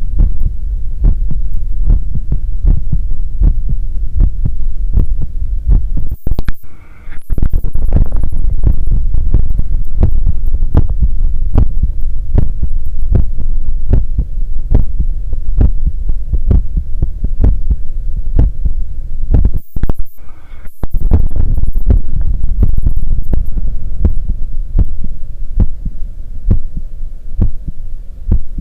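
Human heartbeat heard through a stethoscope on the chest: a steady, loud run of low thumps over a low hum. Twice, about six seconds in and again about twenty seconds in, a short hissing rustle briefly breaks the beat.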